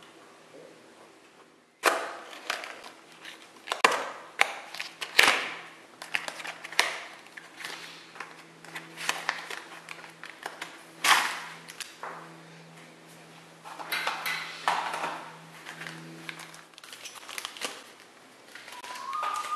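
Cardboard box and plastic packaging of a Beyblade toy being torn open and handled: irregular crackling, rustling and sharp snaps of paper and plastic, starting abruptly about two seconds in. A low steady hum sits underneath and stops near the end.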